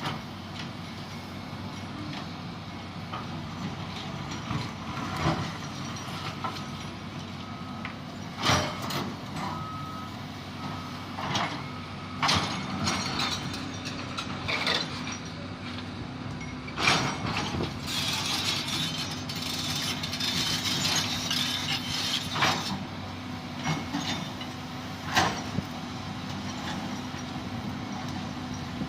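Diesel engine of a heavy earthmoving machine running steadily, with sharp metallic clanks and knocks every few seconds. About two-thirds of the way through there is a few-second burst of hissing, and a faint intermittent high beeping shows up in the first half.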